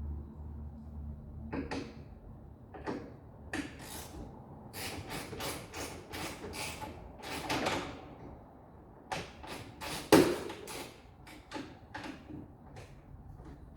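Irregular clicks, clanks and knocks of hand tools and metal body parts being handled as the Jeep's hood is taken off, with one louder bang about ten seconds in. A low steady hum stops about a second and a half in.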